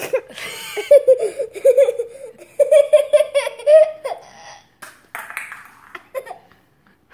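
A young child laughing hard in a string of quick high-pitched ha-ha pulses for about three seconds, then a few scattered clicks and rustles.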